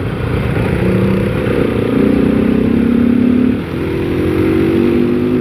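Modified Bajaj Pulsar RS200 motorcycle engine and exhaust running at road speed. The pitch holds, rises about two seconds in, dips briefly with a drop in loudness at about three and a half seconds, then climbs steadily again.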